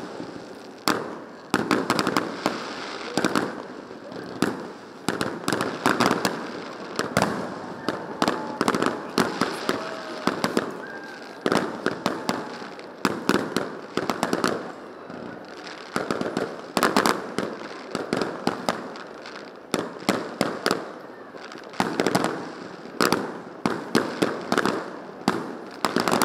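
Fireworks display: a rapid, continuous run of shell bursts, several bangs a second over a steady rumble of echoing booms.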